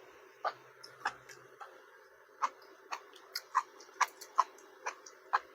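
Close-up eating sounds: a dozen or so short, crisp clicks and crunches at an irregular pace as a meal of stewed chicken with bean sprouts is eaten, over a faint steady hum.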